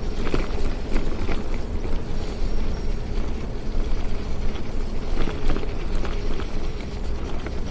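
Bicycle ride on a sand-covered path: a steady wind rumble on the microphone, with irregular clicks and rattles from the bike over the bumpy, sandy surface.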